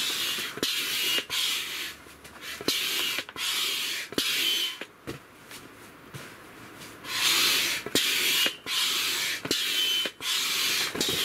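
Hand air pump inflating an air mattress: a rush of air with each stroke, repeating about every second, some strokes carrying a faint whistle. The pumping pauses for about two seconds midway, then resumes.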